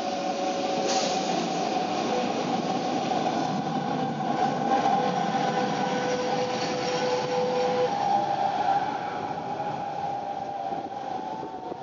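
Metre-gauge electric trains running: a steady motor and gear hum with rail noise, swelling as a train on the neighbouring track passes close alongside and easing off near the end.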